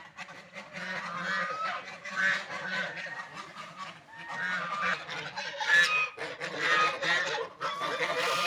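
A group of ducks quacking over and over, their calls overlapping almost without a break.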